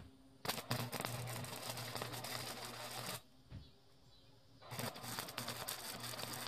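Flux-core wire-feed welder arc crackling and spattering in two welds, the first about two and a half seconds long and the second about two seconds, with a steady low hum while the arc runs. It is welding a saw blade to a steel bed-frame rail.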